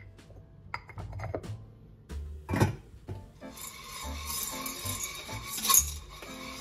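Household handling sounds over soft background music: a few light ringing clinks in the first second and a half, a sharp knock about two and a half seconds in, then a couple of seconds of steady hissing, rubbing noise.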